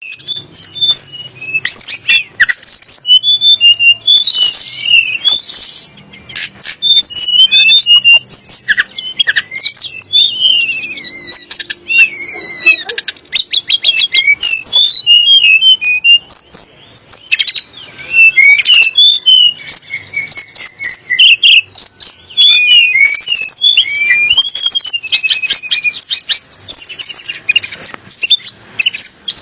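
Tledek gunung songbird singing a busy, continuous song of sharp chirps, rapid stuttered note runs and whistled up-and-down glides, with only brief pauses.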